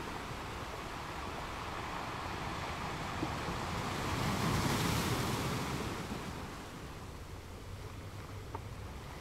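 Wind blowing across the microphone, swelling into a gust about four to six seconds in and then easing off.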